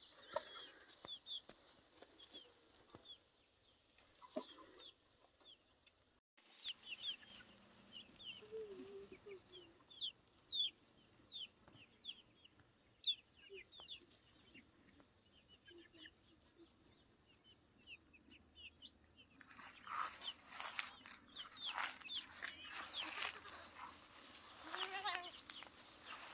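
Young chickens foraging, with soft low clucks and many short, high, falling peeps. In the last quarter louder rustling sets in, like movement through tall grass.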